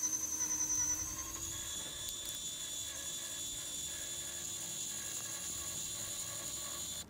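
Steady high whine of a Traxxas TRX-4 RC crawler's small electric motor and gearing as it creeps slowly over a block, the pitch stepping up slightly about a second and a half in; it cuts off suddenly at the end.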